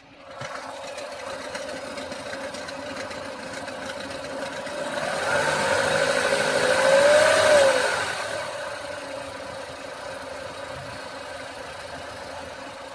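Lada Niva Legend's 1.7-litre four-cylinder petrol engine idling with a metallic knock, then revved once: it builds from about four seconds in, peaks a little past halfway and drops back to idle. The knock goes away while the engine is revved. The owner does not know its cause on an engine this new.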